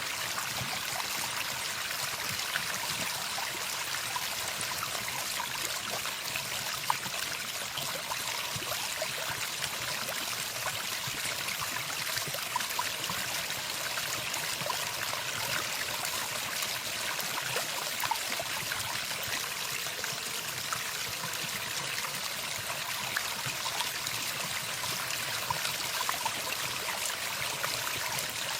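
Running water of a stream: a steady, even rush with small trickling ticks.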